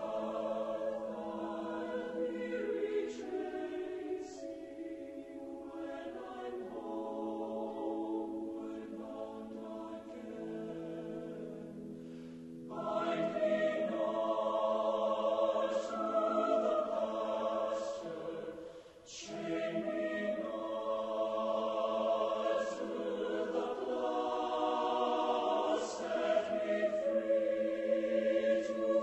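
Choral music: a choir singing slow, sustained harmonies, swelling louder about halfway through, with a brief dip a few seconds later.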